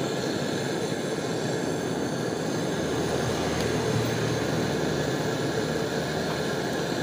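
Hand-held LPG torch, air-fed without oxygen, burning with a steady rushing hiss as it heats a metal workpiece.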